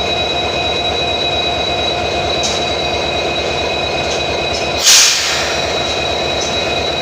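Diesel-hauled passenger train running, with a steady rumble, a fast low rhythm and a steady high whine. A brief loud hiss breaks in about five seconds in.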